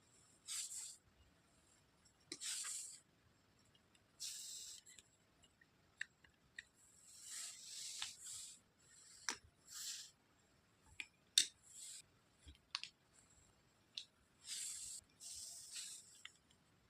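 Plastic toy pieces and packaging of a toy doctor set being handled: short rustling bursts, each under a second, with sharp clicks between them.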